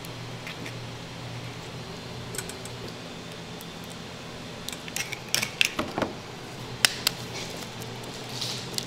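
Eggs being cracked and handled over stainless steel containers: a quick cluster of sharp clicks and knocks of shell on metal about halfway through, over a steady low hum.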